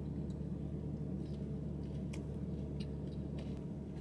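A person chewing food with a few faint, scattered clicks of mouth and fork sounds, over a steady low hum inside a car.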